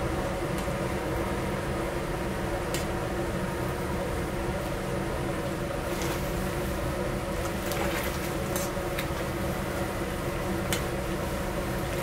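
Steady roar of a high-powered commercial gas burner under a large cauldron of boiling anchovy broth, with a steady hum throughout and a few faint clicks of a metal spoon scraping doenjang from a steel bowl.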